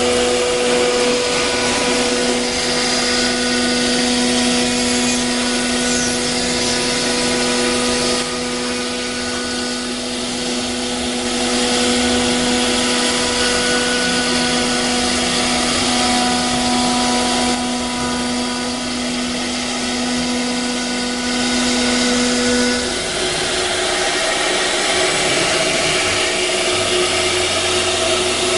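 CNC router spindle running with a steady whine over the noise of the cutter working the material. The whine drops away about 23 seconds in.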